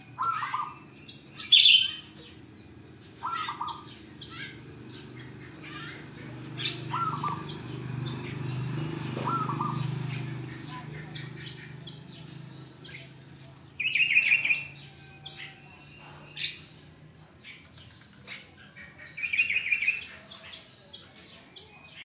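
Zebra dove (perkutut) cooing in short phrases of quick notes, four times in the first half, among louder bursts of rapid, higher chirping from other birds, loudest near the start and twice later on. A low rumble swells and fades around the middle.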